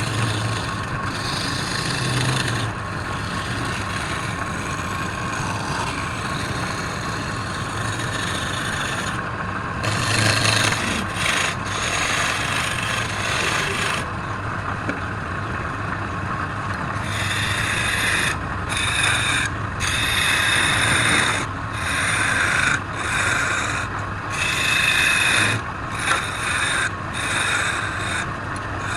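Wood lathe running with a steady motor hum while a turning tool or abrasive scrapes against the spinning wood in repeated stop-start passes; the scraping drops away for a few seconds midway, then resumes.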